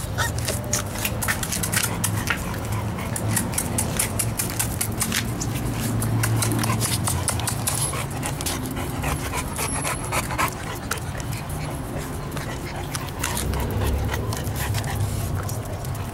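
Bullmastiff puppies panting and now and then whimpering, over many short clicks and scuffs.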